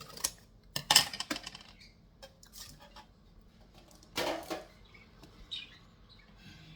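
Kitchen utensils and dishes clattering and clinking, a handful of sharp knocks with the loudest cluster about a second in and another a little after four seconds.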